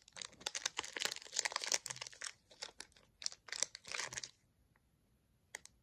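Foil wrapper of a Pokémon booster pack being torn open and crinkled: a dense run of crackles and rips for about four seconds, then it stops, with a couple of faint ticks near the end.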